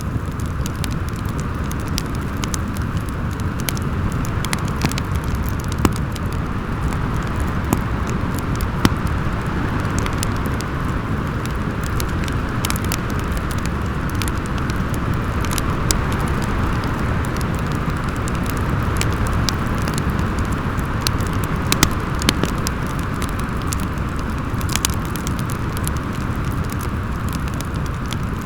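Storm wind howling as a steady rush with a low rumble and a whistling hiss, over a crackling wood fire whose small pops and snaps come at scattered moments.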